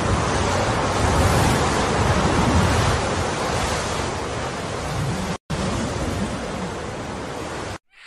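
Loud, steady rushing noise with no distinct tones, broken by a brief gap about five seconds in and cutting off just before the end.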